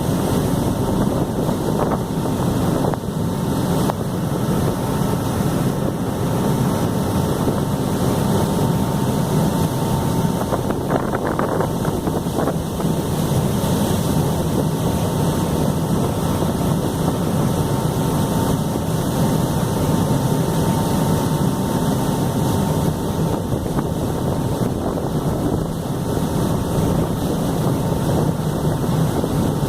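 A harbour ferry's engine running steadily underway, with water rush and wind buffeting the microphone, plus a faint steady hum.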